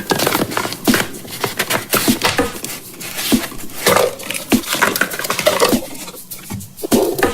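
Rapid clicking, tapping and rattling of small hard plastic pieces as a toy surprise egg is handled and opened.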